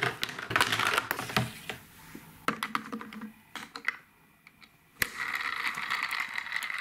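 Plastic toy parts clicking and tapping as a Paw Patrol Skye figure goes down the plastic slide of the Lookout playset and is set into her toy helicopter. About five seconds in, a sharp click is followed by a steady whirring as the helicopter is pushed along.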